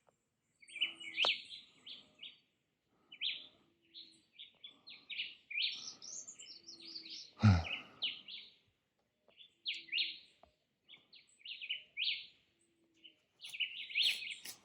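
Birds chirping in short, quick calls that repeat every second or so. About halfway through there is a single thump, the loudest sound.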